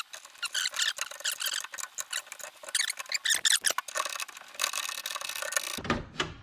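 Squeaking and rubbing of the VW Beetle's inside door lever linkage, metal parts scraping and squealing in quick repeated strokes as the mechanism is worked by hand.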